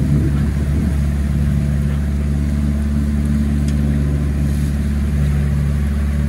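Sailing yacht's inboard diesel engine running steadily under way, a constant low drone, with a hiss of wind and water over it.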